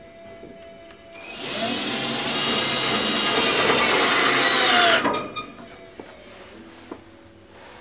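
Black & Decker 12-volt cordless drill driving a screw into the desk panel. It runs for about three and a half seconds, starting a second or so in, and its whine dips in pitch just before it stops as the screw seats. A few light clicks follow.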